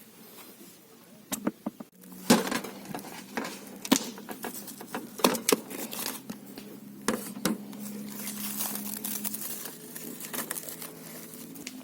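Crinkling and rustling of things being handled, with scattered sharp clicks and knocks, over a low steady hum.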